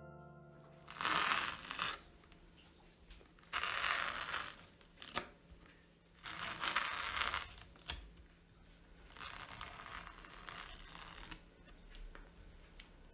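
Masking tape being peeled off the edges of a painted canvas: four separate tearing pulls, each one to two seconds long, with a couple of sharp clicks between them.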